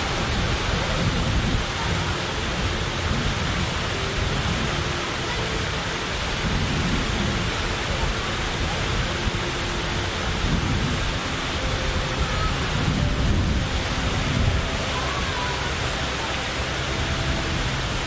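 Fountain water falling and splashing steadily, a continuous rushing hiss with a low rumble beneath it.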